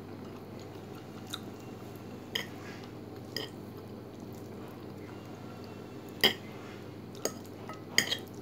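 Fork and spoon clinking against a plate while twirling spaghetti: about seven sharp clinks, the loudest about six seconds in and a quick pair near the end, with chewing between them. A steady low hum runs underneath.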